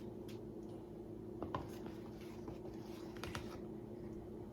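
Faint steady hum of a small kitchen, with a few light clicks and scrapes as kitchen items are handled, about half a second in, around a second and a half, and around three seconds in.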